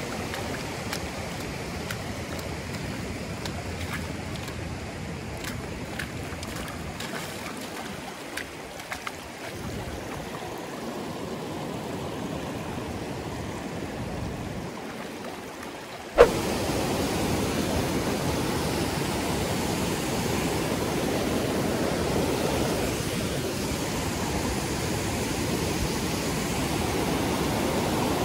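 Rushing water of river rapids, a steady noise; a bit over halfway through it jumps suddenly louder and fuller, with a sharp click at the change.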